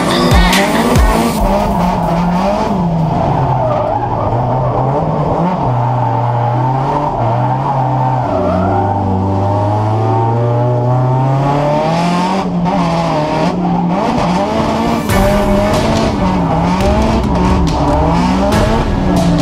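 Nissan 180SX drift car's SR20 engine heard from inside the cabin, revs swinging up and down about once a second as the throttle is worked through a drift, with a longer steady climb in the middle; tyres squealing as the car slides.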